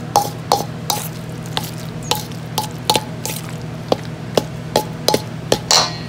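Utensil clinking and knocking against a mixing bowl as potato salad is stirred, about two to three clicks a second with a longer scrape near the end, over a steady low hum.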